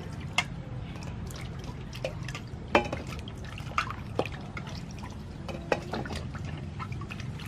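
Carrots being washed by hand in water: a few separate splashes and drips over a steady low hum.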